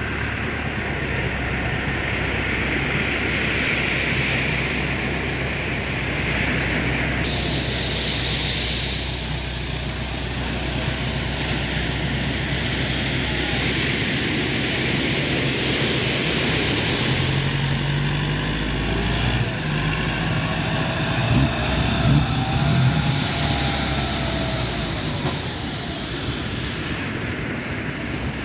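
Steady motor engine noise over breaking surf and wind. In the second half the engine note rises and falls with louder peaks as the ski-boat's twin outboard motors are driven out through the waves.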